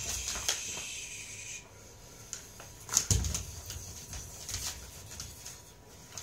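A dog scuffling and leaping at a flirt pole's flapping cloth lure: rustling and light knocks, with one loud thump about three seconds in.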